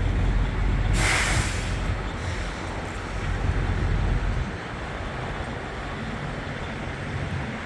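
Steady low rumble of an idling diesel semi truck. About a second in comes one short, sharp hiss of released air, like a truck's air brakes. The rumble drops off partway through.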